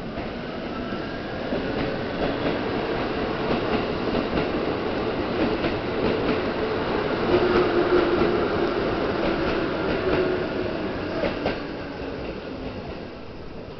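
Keikyu electric commuter train running close past the platform, growing louder to a peak a little over halfway through and then fading. Its wheels click repeatedly over the rail joints over a steady low hum.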